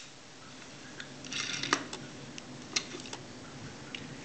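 Light clicks and taps of small die-cast toy cars and their plastic packaging being handled, with a short rustle of packaging about a second and a half in.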